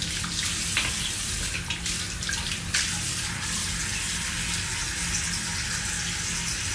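Tap running steadily into a sink, with a few splashes in the first few seconds as water is scooped onto the face to wet it for washing.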